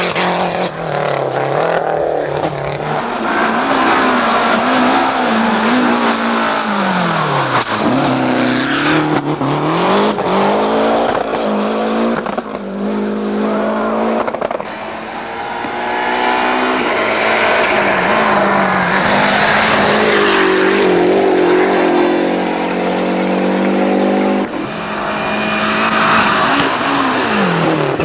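Lancia Delta Group A rally cars' turbocharged two-litre four-cylinder engines at full throttle on a stage. The engine note rises and falls again and again as the cars rev and lift.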